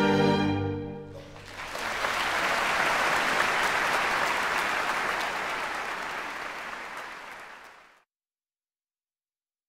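Final held chord of the orchestral accompaniment dies away about a second in. An audience then applauds, and the applause gradually fades out near the end.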